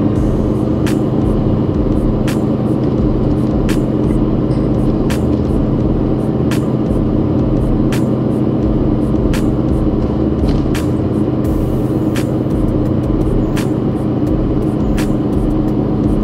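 Cabin noise of a coach bus driving along a road: steady engine hum and low road rumble, with a sharp tick about every second and a half.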